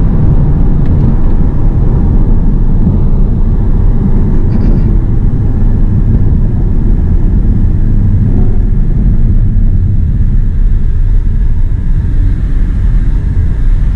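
Steady low rumble of an Audi TT's engine and tyres, heard inside the cabin as the car drives slowly.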